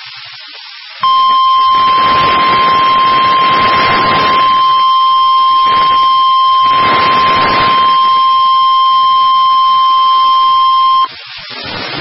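NOAA Weather Radio 1050 Hz warning alarm tone: one long, loud, steady beep that starts about a second in and cuts off sharply about ten seconds later, over radio hiss and static. The tone signals that an urgent weather alert is about to be read.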